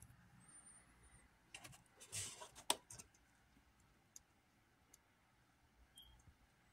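A few faint clicks and a short rustle as a hand handles the boxed metal truck decoration and switches its small lights on, with one sharp click close to three seconds in. After that only a few faint ticks.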